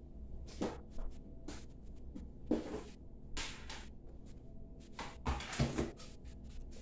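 A handful of short knocks, clicks and rustles of household items being handled, like a cupboard door or a container lid, spaced irregularly over a few seconds, with the two loudest close together near the end.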